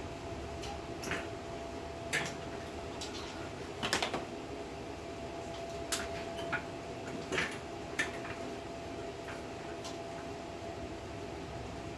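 Tools and parts being handled while working on a small engine: scattered sharp clicks and light knocks, the loudest about four seconds in, over a steady background hum.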